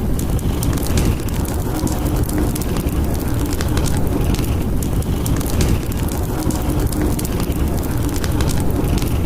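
Fireplace crackling, many small snaps over a steady low rumble of storm wind.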